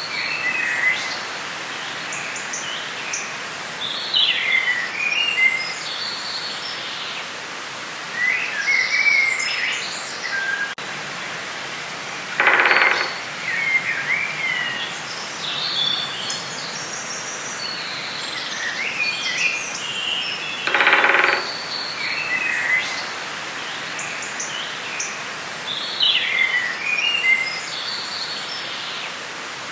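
Forest ambience: several birds singing and chirping over a steady hiss, with a rattling call about a second long twice, near the middle and again about two-thirds of the way through.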